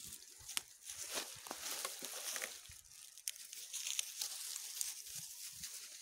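Dry leaf litter rustling and crackling underfoot in an irregular patter of crunches and small sharp snaps as goats forage across it.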